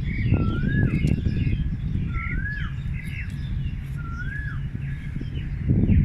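Several birds singing: one bird repeats a short whistle that rises and then falls, three times about two seconds apart, while others chirp higher and faster. A steady low rumble runs underneath and grows louder near the end.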